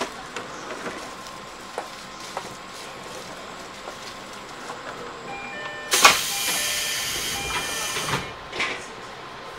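A JR 205 series electric train's compressed-air system lets out a sharp hiss of air about six seconds in, lasting about two seconds, then a short second puff, over the train's quiet steady running noise.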